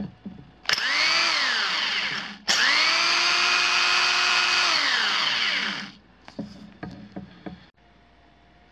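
Milwaukee Magnum 5370-1 corded hammer drill running in reverse in its high range. A short trigger pull, about a second in, makes the motor whine up and straight back down. A longer run of about three seconds follows: the whine rises to a steady pitch and then coasts down, and a few light clicks come after it.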